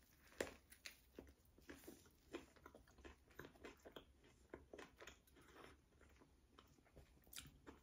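A person biting into a fried chicken sandwich about half a second in, then chewing it: a faint, irregular scatter of small clicks, with a patty that is a little dry and not very crunchy.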